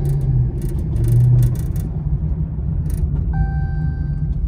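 Rebuilt police car's engine running with road rumble on a slow test drive, the engine note swelling twice in the first second and a half, with a few light clicks and rattles.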